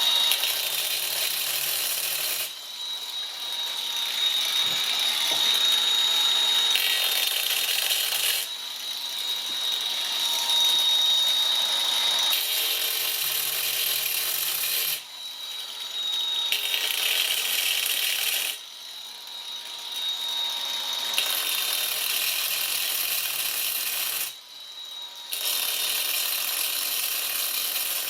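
A grinder with a high-pitched whine cutting letters into a quartz brick, in a series of grinding passes a few seconds long separated by short, quieter breaks.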